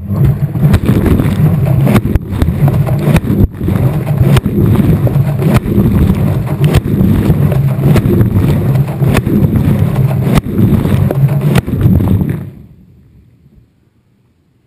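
Washing machine running, heard from inside the drum: a steady low motor hum with a sharp knock a little more than once a second. It winds down and stops about three-quarters of the way through.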